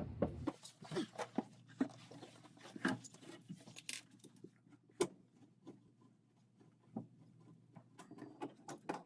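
Light, irregular clicks and taps of the washer's water-supply hose fittings being handled and screwed onto the valves.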